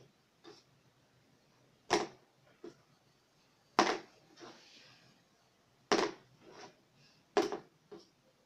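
A plastic marker flipped repeatedly onto a wooden tabletop: a sharp clack on landing about every two seconds, five times, most followed by a smaller bounce or clatter as it tips over.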